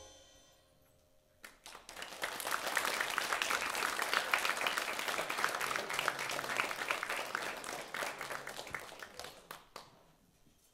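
Audience applause for an orchestra. After the last notes die away, clapping starts about a second and a half in, holds steady, then thins out and fades near the end.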